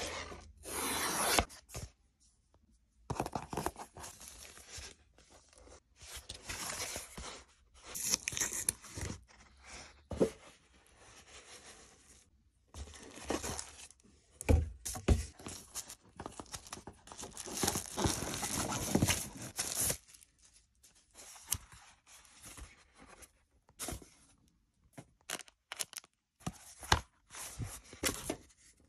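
Unboxing an iPad case: a cardboard box being opened, then paper and plastic packaging tearing, rustling and scraping in irregular bursts as the case is unwrapped, with a couple of low thumps about halfway through.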